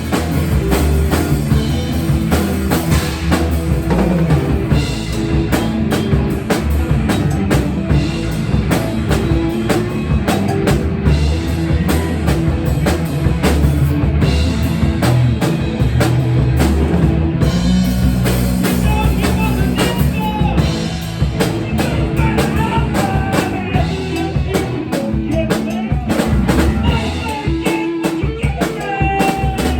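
Live rock band playing: drum kit with bass drum, electric guitar and bass, a steady beat with no breaks.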